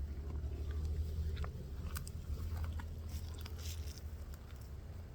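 A bull chewing grass, with scattered short crunching sounds over a steady low rumble.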